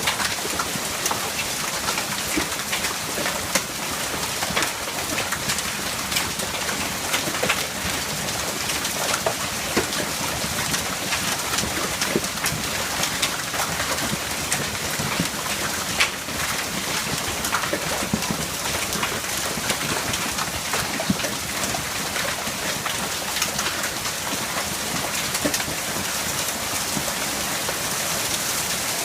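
Hailstorm: hailstones pelting down in a dense, steady patter, with sharper individual hits clicking throughout.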